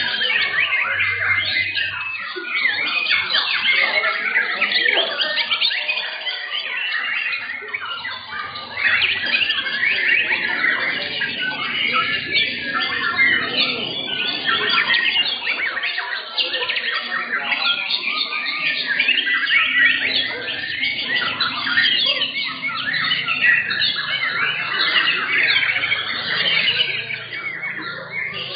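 Many caged white-rumped shamas (murai batu) singing at once in contest: a dense, continuous chorus of fast whistles, chirps and trills, with no pause.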